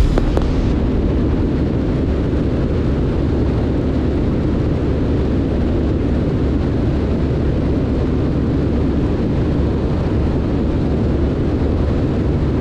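Steady cockpit drone of a Cessna 162 Skycatcher in level cruise flight: its Continental O-200 engine and propeller running at a constant setting, with airflow noise, heard from inside the cabin.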